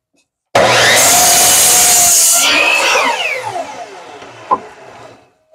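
Craftsman compound miter saw starting up about half a second in, its blade cutting through a pine board for a second or so with a loud hiss. The motor is then switched off and spins down with a falling whine that fades over a couple of seconds. A single knock comes near the end.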